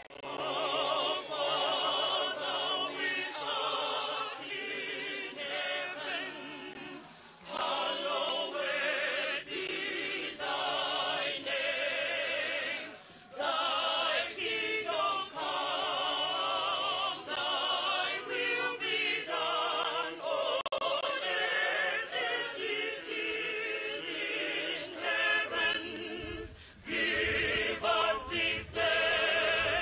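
A choir singing slow phrases with long held notes and vibrato, with brief pauses between phrases.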